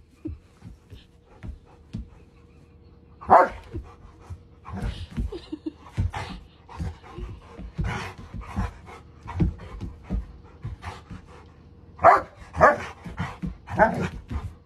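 A large black-and-tan dog panting and sniffing in quick breaths while it plays, with a few short barks: one about three seconds in and three close together near the end.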